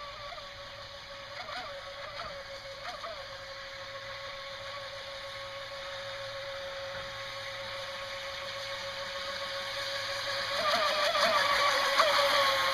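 RC jet boat's brushless electric motor running with a steady high whine, its pitch wavering briefly a few times, getting louder toward the end. Its bearings are rusty, and the owner says they make it sound awful.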